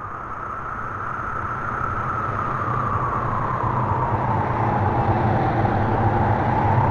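DJI Neo mini drone's propellers whining, the pitch wavering up and down. It grows steadily louder as the drone comes closer.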